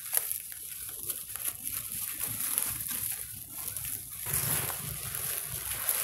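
Dry fallen leaves crackling and rustling under macaques' feet and hands as they move about, in many short irregular crackles over a steady high hiss.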